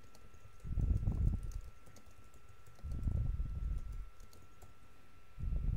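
Typing on a computer keyboard in three short spurts, a line of text being keyed in.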